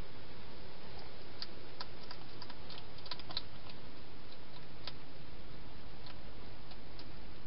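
Wild hedgehog feeding inside a plastic feeding station: scattered sharp clicks and crunches of it eating, most bunched about one to three and a half seconds in, over a steady hiss.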